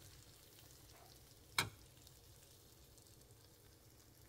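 Corn cheese (cooked corn kernels with melted mozzarella) sizzling faintly in a pan while a metal spoon stirs it. One sharp clink of the spoon against the pan about a second and a half in.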